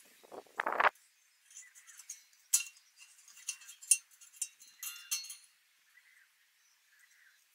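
Metal being handled: a short scrape just under a second in as the cut steel LPG cylinder is moved, then scattered light clinks and taps as a steel plate is set on it and marked out.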